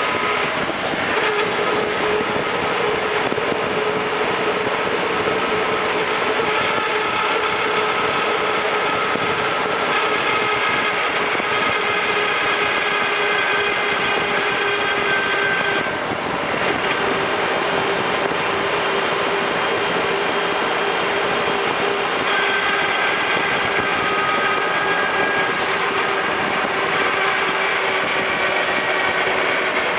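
Land Rover Defender 110 on the move: steady road and drivetrain noise with persistent whining tones, one low and several high. The sound dips briefly about sixteen seconds in.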